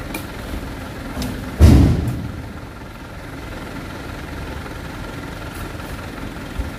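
Heavy oil palm fruit bunches thrown up into a truck's cargo bed, landing with a loud thud about one and a half seconds in and another near the end, over a steady low rumble.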